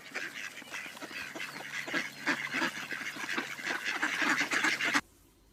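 Waterfowl calling: a rapid, busy run of short calls that stops abruptly near the end.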